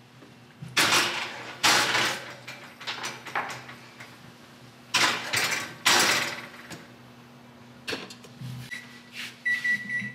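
Metal donut pans slid onto the racks of a wall oven, with four loud clattering bursts of metal on metal as the oven door and pans are handled, over a low steady hum. Two high electronic beeps sound near the end, the second one longer.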